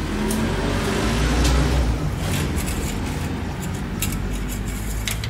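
A steady low hum with a few light clicks and rustles as hands work at the oil filler and dipstick with a rag under the open bonnet.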